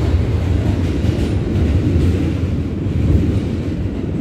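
New York City Subway L train running through a tunnel, heard from inside the car: a steady, loud, low rumble.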